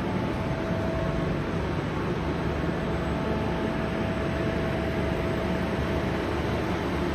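Steady running noise of waste-feed plant machinery, an even low hum with a faint steady whine over it.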